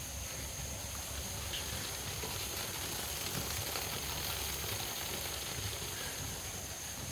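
Insects calling in one steady, unbroken high note, over an even outdoor hiss, with a low uneven rumble on the phone microphone.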